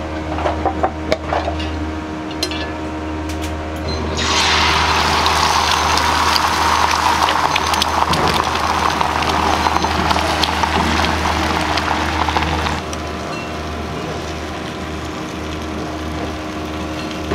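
Beaten egg sizzling loudly on a hot cast-iron serving plate, starting about four seconds in and cutting off at around thirteen seconds. It is preceded by a few clanks of the iron plate being handled, with a steady low hum throughout.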